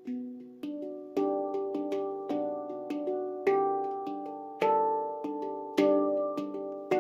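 Instrumental background music: pitched notes struck or plucked and left to ring and fade, a strong new note about once a second.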